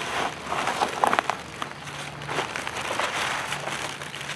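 Dry fallen leaves rustling and crackling in irregular small clicks as a hand and feet move through the leaf litter.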